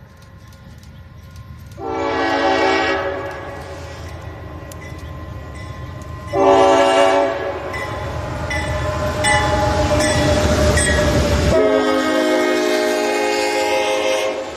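Locomotive air horn sounding a short blast about two seconds in and another about six seconds in, then a long blast over the last three seconds. A passing train rumbles low underneath in between.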